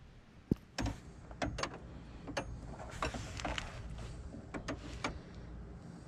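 Steel wrenches clinking against each other and against the compression fitting on an AC hard line as two wrenches are set on it to tighten it: a string of irregular sharp metallic clicks and taps.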